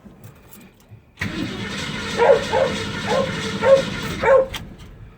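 Ford Mustang's starter cranking the engine for about three seconds, starting about a second in and cutting off without the engine catching: it cranks but won't start. A dog barks about five times over the cranking.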